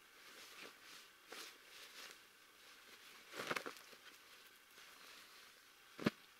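Rustling of a padded jacket being taken off and handled, loudest a little past halfway, with a single sharp knock near the end as it is laid down.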